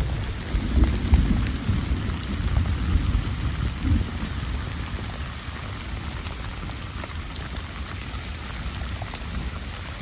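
Steady rain falling, with a low rumble of thunder that rolls and dies away over the first four seconds.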